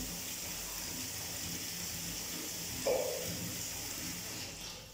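Bathtub tap running into the tub as a steady rushing hiss, shut off near the end. A brief louder sound comes about three seconds in.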